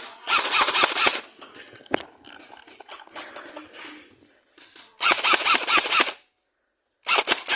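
Airsoft electric rifles firing rapid full-auto bursts: a burst near the start, quieter scattered shots in the middle, then two more bursts near the end.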